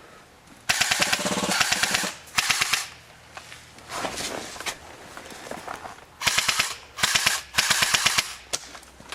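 Airsoft guns firing full-auto bursts, each a rapid string of sharp clicks. There are about six bursts, the longest running a little over a second, with a couple of fainter ones in between from further off.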